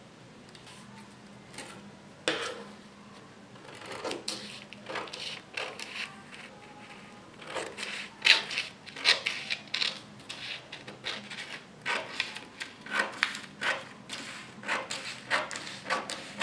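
Scissors snipping through pattern paper: a run of irregular, crisp snips with paper rustling, starting about two seconds in.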